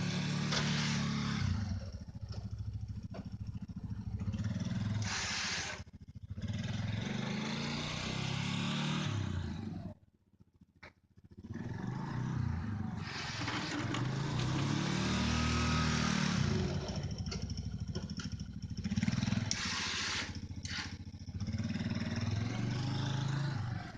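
Quad ATV engine running while plowing snow, its pitch rising and falling over and over as it revs up and eases off. The sound cuts out to near silence for about two seconds near the middle.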